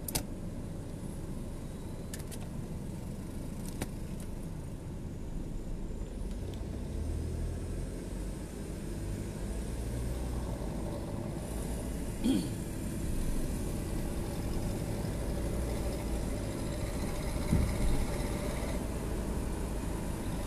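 A low, steady engine-like rumble, with a few clicks near the start and two brief sliding tones later.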